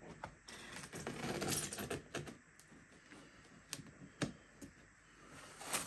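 Foam packing and a cardboard box being handled and pulled apart: scattered sharp clicks and creaks of the foam, with a stretch of rustling between about one and two seconds in.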